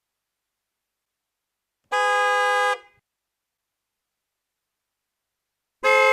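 Car horn honking: a steady honk of under a second, then silence, then a second honk starting just before the end.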